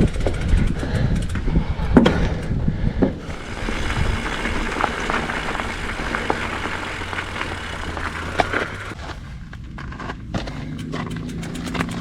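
Hardtail mountain bike rolling over a dirt trail: tyre and wind rumble with sharp knocks and rattles from bumps, quieter after the middle.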